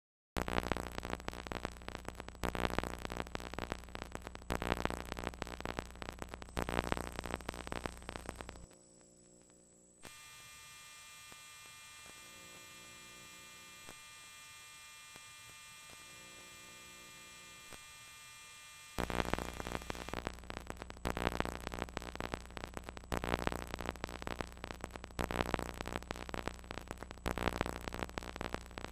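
A buzzing electronic hum with crackling static that surges about every two seconds. Through the middle it gives way to a quieter, steady hum of many even tones, then the surging static returns.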